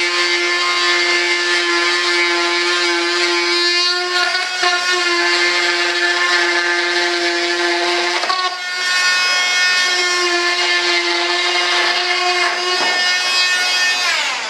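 Handheld high-speed rotary tool whining as it cuts excess fiberglass cloth off a mould's parting flange; the pitch shifts a few times as the cutter loads and unloads, then winds down at the end as it is switched off.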